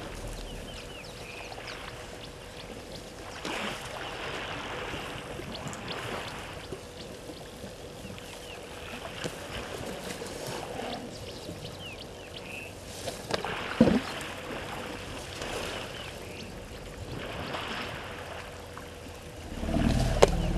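Water sloshing and lapping at a waterhole, with a few faint bird calls over it. A short sharp call comes about two-thirds of the way through, and a louder call starts near the end.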